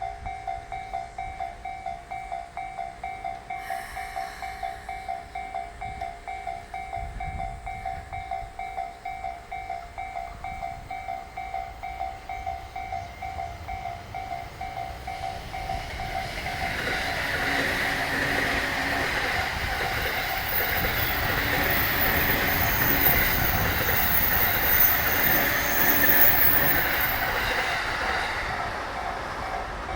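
A Japanese level-crossing alarm dings in a rapid, steady rhythm. About halfway through, a freight train hauled by a JR Freight EF210 electric locomotive arrives and runs past, its container wagons' wheels clattering over the rail joints and growing louder, with a thin high whine for several seconds near the end.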